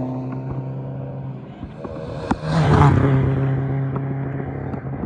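Race cars passing on a track straight: one car's engine note holds steady and fades over the first second or so, then about two and a half seconds in a second car goes by closer with a rush of noise, its engine note steady until near the end.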